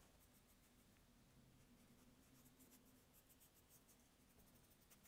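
Faint scratching of a paintbrush working acrylic paint, first mixing on a paper-plate palette and then stroking onto a painting board, over a low steady hum; near silence overall.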